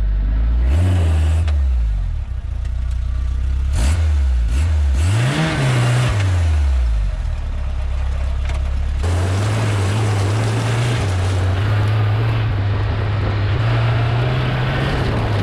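Suzuki Samurai's 1.6-litre 8-valve G16A four-cylinder engine running through its custom exhaust as the vehicle drives. The pitch rises and falls in the first half, revs up and drops back about five seconds in, then holds a steadier, higher note from about nine seconds.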